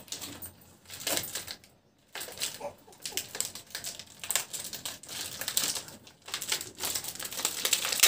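Plastic food packet crinkling and rustling as it is handled and pulled open, a long run of irregular crackles.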